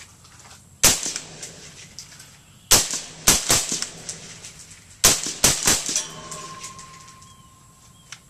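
Suppressed 5.56 mm Bushmaster ACR carbine firing through an AAC M4-2000 suppressor: seven shots, a single one about a second in, then three quick shots, then three more. Each shot is sharp and trails off briefly.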